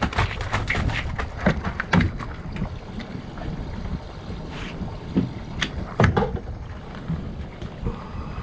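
Irregular knocks and clattering thumps on a small fishing boat, several close together at first and a few loud ones about five to six seconds in, over a steady low wind rumble on the microphone.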